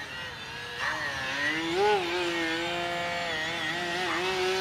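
E-flite QQ Edge model aerobatic plane's electric motor and propeller buzzing in flight. The buzz grows louder about a second in and its pitch bends up and down with the throttle, holding steady in between.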